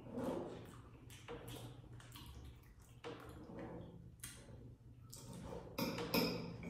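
Faint, scattered clicks and scrapes of a metal fork against a plate and an aluminium foil tray as lasagna is cut, with quiet chewing; the clicks come a little louder and closer together near the end.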